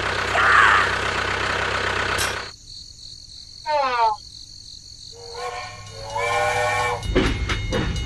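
Dubbed sound effects: a steady engine running, cut off about two and a half seconds in. Then a quick falling whistle, a steam-train whistle blowing twice, and near the end a train starting to run with a rhythmic clatter.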